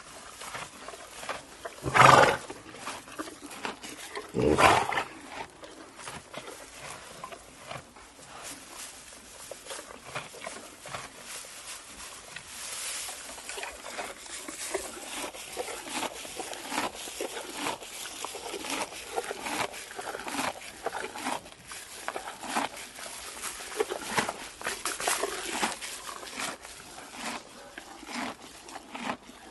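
Horse eating hay: steady crunching and rustling as it chews and pulls at the hay, with two loud breathy blasts about two and four and a half seconds in.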